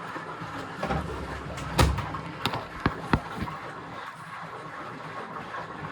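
BEKO washing machine running its service test: a series of knocks and clicks, loudest about two seconds in, over a steady background hiss.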